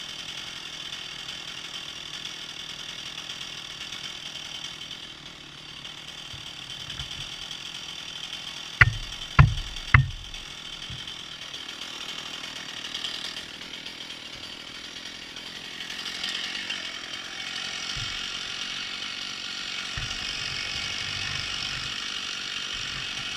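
Chainsaw running steadily at a moderate distance. A little before halfway through come three sharp knocks in quick succession, about half a second apart.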